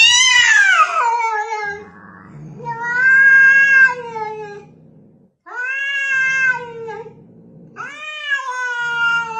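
A cat giving four long, drawn-out meows, the first sliding down in pitch and the others rising and then falling, in a tense face-off with another cat.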